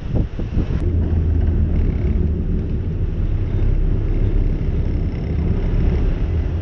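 Sport-fishing boat's engines running with a steady low rumble, wind buffeting the microphone over it.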